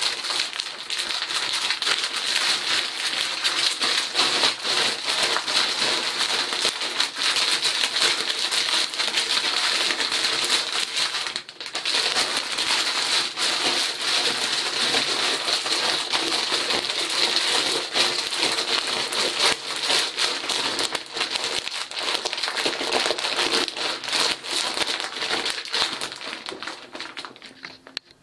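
A plastic bag of oyster mushroom grain spawn being squeezed and kneaded by hand: the bag crinkles and the grain crackles continuously as the clumped, mycelium-bound grain is broken apart into loose kernels. There is a short pause about eleven seconds in, and the sound dies away near the end.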